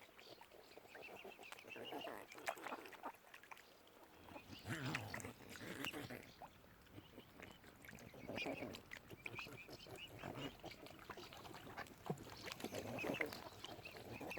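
Waterfowl calling at close range in several separate bouts, the strongest about five seconds in and again near the end.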